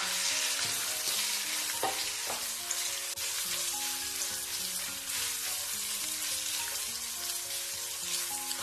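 Marinated minced pork sizzling in a little oil in a stainless steel wok on low heat, a silicone spatula pushing and breaking it apart, with a couple of light knocks of the spatula about two seconds in.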